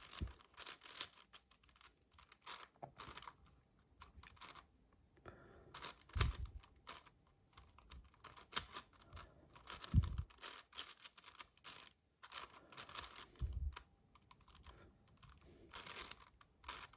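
Magnetic 7x7 cube being turned by hand: irregular runs of light plastic clicks as the layers snap into place, with a few dull low thumps in between.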